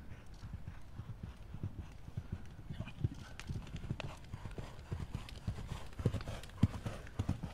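Hoofbeats of a horse cantering on a sand arena surface, a steady run of low thuds that grow louder as the horse comes close, loudest near the end.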